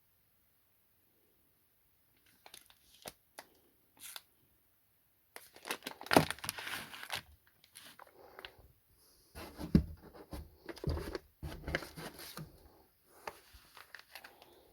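Packaging being torn open and crinkled by hand, in irregular rustles and tears with scattered clicks and a few low knocks as it is handled. It starts after about two seconds of quiet and grows louder about halfway through.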